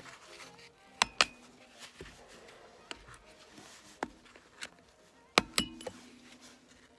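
Metal striking tool knocking on the rear wheel hub's grease cap of a VW Passat B4 to work it loose, a series of sharp metallic knocks at uneven intervals. The loudest come as two quick pairs, about a second in and near the end, the last pair leaving a brief ringing.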